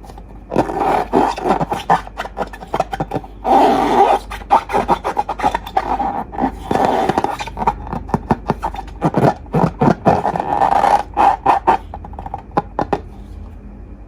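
Slime being squeezed and worked by hand: rapid runs of sticky squelches and crackling clicks, stopping about a second before the end.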